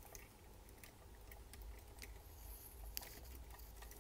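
Faint small clicks and taps of hard plastic toy parts being handled and pressed together on a DX Gridman figure, with one sharper click about three seconds in.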